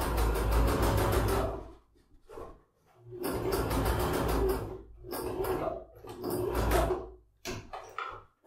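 Domestic electric sewing machine stitching in three runs of about two seconds each, a rapid even chatter of needle strokes with pauses between, then a few short spurts near the end. It is topstitching all the way around the top edge of a fabric tote bag to hold the lining in place.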